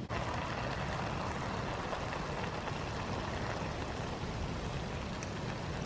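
Portable gas canister camping stove burner running under a pot, giving a steady hissing rush with a low rumble beneath it.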